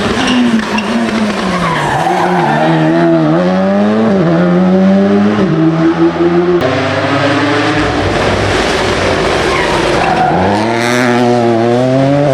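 Rally car engine revving hard, its pitch rising and dropping again and again through quick gear changes and lifts, with a sharp crack about six and a half seconds in. Midway the engine note gives way to a rushing noise before the revs climb again near the end.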